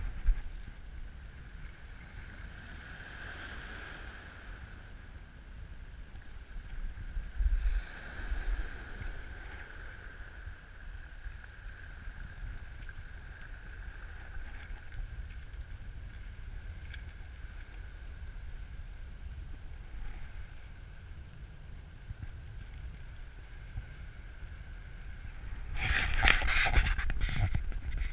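Small waves washing in over a pebble beach, rising and falling, with wind rumbling on the microphone. Louder crackling noise near the end.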